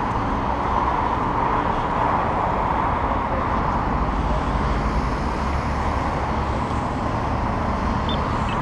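Steady road traffic: cars driving through a city intersection. Near the end, a couple of faint clicks from a pedestrian walk-signal push button being pressed.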